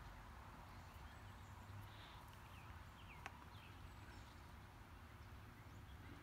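Near silence: faint outdoor background with scattered, distant short bird chirps and a single sharp click a little over three seconds in.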